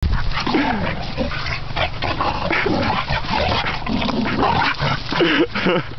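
Dogs play-fighting, vocalising without a break: rough noisy sounds with short whines and yelps that rise and fall in pitch, several of them close together near the end.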